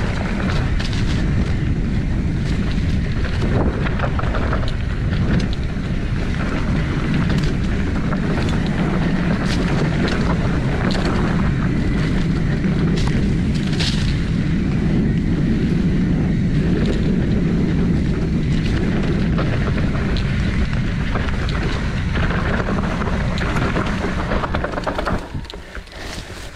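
A hardtail mountain bike riding a rough forest trail: tyres rumbling over dirt and roots, the bike rattling with many small knocks, under steady wind buffeting on the microphone. It drops away near the end.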